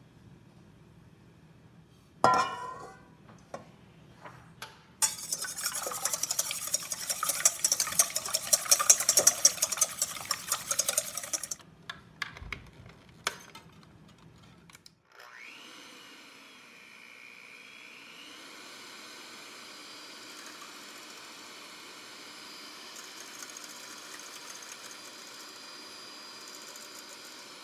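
A sharp knock, then several seconds of loud gritty rattling. About halfway through, an electric hand mixer starts with a short rising whine and runs steadily, its whisks beating egg whites in a stainless steel bowl.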